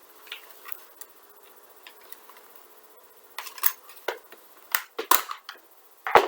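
Sharp clicks and clacks of a Wells M4 CQB gel blaster being handled as its magazine is taken out, a handful of them in the second half, the loudest just before the end.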